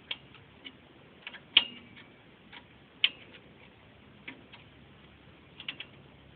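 Irregular metallic clicks and taps from a 10mm wrench tightening the hot-wire nut on an alternator's terminal, with two sharper clinks about a second and a half and three seconds in, the first ringing briefly.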